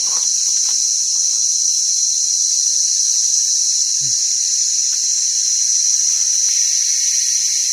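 Insects calling in a steady, high-pitched chorus that never lets up, with a few faint rustles of dry leaf litter.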